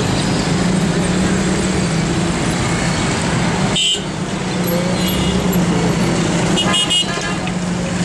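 Busy night-time city street traffic, a dense steady rush of vehicles under a constant engine hum. Short car-horn toots sound about four seconds in and again about three seconds later.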